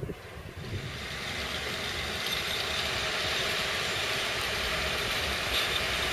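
Freight train passing through a station: a steady rush of locomotive and wheel noise that builds and grows gradually louder from about half a second in.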